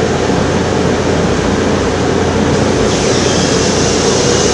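Steady, loud rushing noise of running workshop machinery, turning a little hissier about three seconds in, where a thin high whistle joins it.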